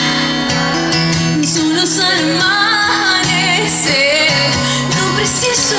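Live pop song: a female singer holds long, wavering notes over acoustic guitar accompaniment.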